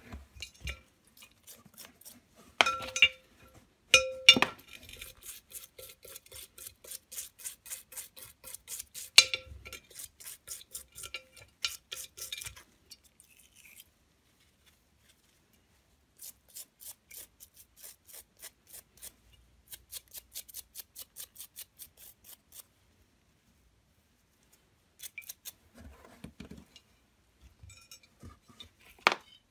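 Small steel clutch parts knocking against a glass bowl of paraffin, the glass ringing briefly after the loudest knocks, then a small brush scrubbing the parts in quick, even strokes, stopping and starting.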